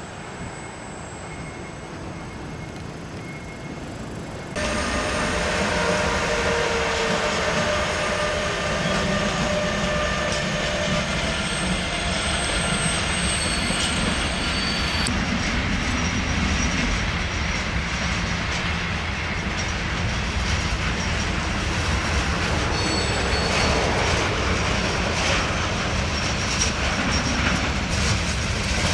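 Container freight train hauled by two METRANS class 386 Siemens Vectron electric locomotives passing close by: a continuous rumble of wheels on rail with drawn-out wheel squeal and, later, rhythmic clickety-clack over the rail joints. It sets in suddenly about four and a half seconds in, after a quieter steady hum.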